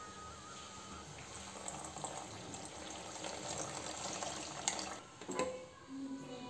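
Milk poured in a stream into a steel saucepan of boiling tea, splashing into the liquid: the stage in making chai where milk goes in once the tea water has boiled. A couple of sharp knocks come near the end.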